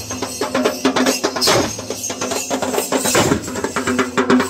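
Dhol drums beaten in a fast, dense rhythm of rapid strokes, the drumming of a Muharram procession.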